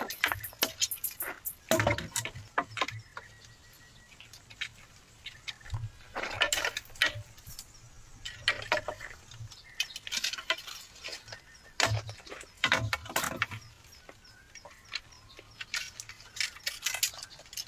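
Irregular sharp clicks, crackles and light knocks, bunched in short clusters a few seconds apart.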